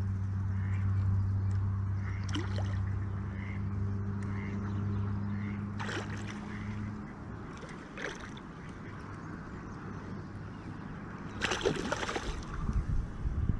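A hooked fish splashing at the water's surface in front of the landing net, in short splashes that build to the loudest burst of splashing near the end. A steady low hum runs underneath and stops about halfway.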